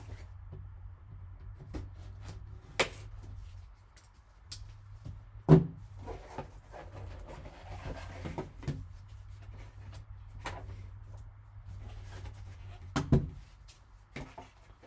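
Gloved hands opening a sealed white cardboard card box and handling its packaging: scattered light knocks and rustles, with a sharper knock about five and a half seconds in, over a low steady hum.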